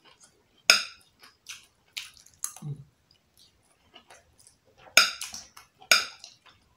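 Close-miked eating sounds from a meal of jollof rice: a string of short, sharp smacks and clicks, several seconds apart and irregular, the loudest two near the end.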